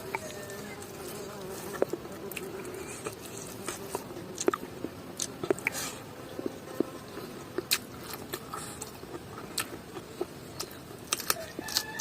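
Close-miked chewing and sharp wet mouth clicks of someone eating, scattered irregularly over a steady buzzing hum.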